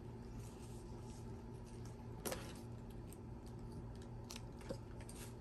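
Faint handling noise: a couple of soft, short clicks as small plastic toys and a pair of scissors are handled on a plastic tray, over a low steady hum.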